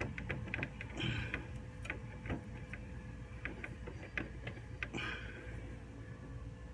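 Irregular light clicks and knocks of a BMW E46 radiator being worked loose by hand, thinning out after about five seconds.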